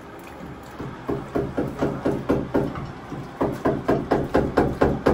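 Tigress lapping water from a metal bowl, a quick run of wet laps at about four to five a second, starting about a second in.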